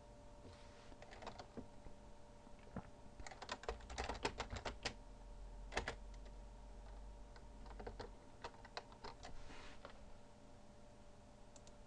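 Computer keyboard typing: faint, scattered keystrokes in irregular short runs, over a steady low hum.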